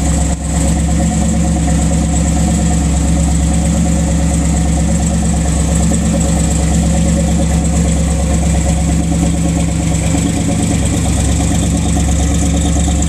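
Supercharged big-block V8 with an 8-71 blower in a 1957 Chevy sedan delivery, idling steadily.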